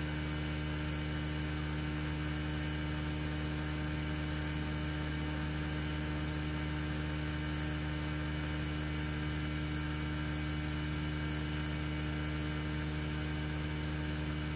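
Steady electrical mains hum: a low buzz with many evenly spaced overtones, unchanging in level.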